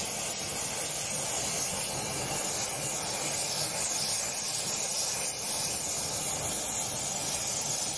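Gas torch flame hissing steadily as it heats the cast-iron body of a clamped hand plane to soften it for straightening.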